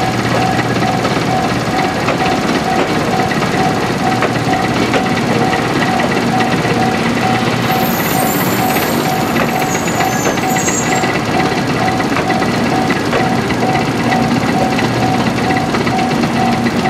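Japanese level-crossing warning bell ringing in an evenly repeated ding, over a loud continuous mechanical clatter and rumble. A brief high-pitched squeal comes about eight seconds in.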